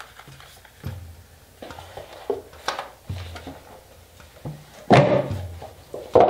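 Cardboard packaging boxes being handled and set down on a cloth-covered table: a series of separate knocks and thumps, the loudest two near the end.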